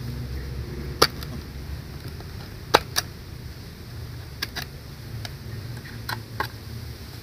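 Irregular sharp clicks and knocks as a split bamboo hive log is handled and worked with a knife blade, over a steady low rumble.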